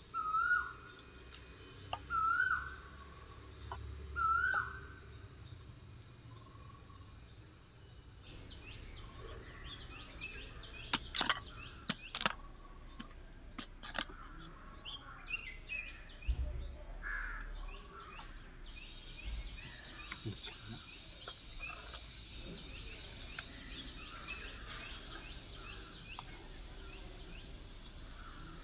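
Jungle ambience: a steady high drone of insects, with a bird giving three short rising whistled calls in the first few seconds. A handful of sharp knocks in the middle come from a machete cutting bamboo. The insect drone turns abruptly louder about two-thirds of the way through.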